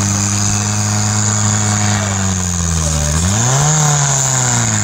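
Off-road cage buggy's engine working hard under load on a climb: held at a steady pitch, dipping about three seconds in, then revving up sharply and easing off again near the end.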